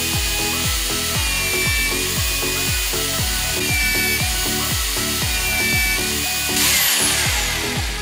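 Background music with a steady beat, over an electric drill in a drill-press stand boring through a small metal plate.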